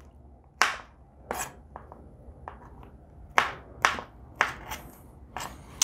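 Kitchen knife chopping pineapple into small chunks: about ten short, irregular knocks as the blade cuts through the fruit and hits the board beneath.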